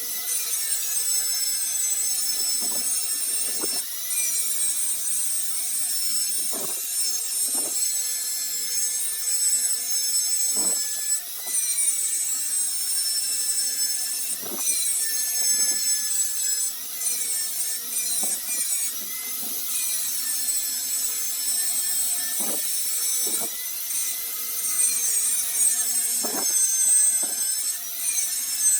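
Metal being scraped and rubbed in a workshop: a continuous rasping with a high, wavering ringing over it, and a sharper scrape every few seconds.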